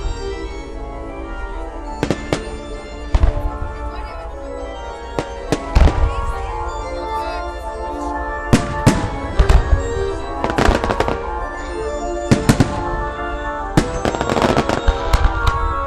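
Fireworks bursting in a string of sharp, irregular bangs, some in quick pairs, over sustained orchestral-style music played with the display.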